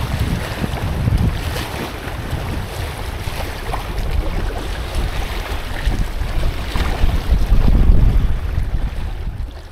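Fast river water rushing and splashing against the bow of an inflatable packraft as it is paddled downstream, with strong wind buffeting on the action camera's microphone.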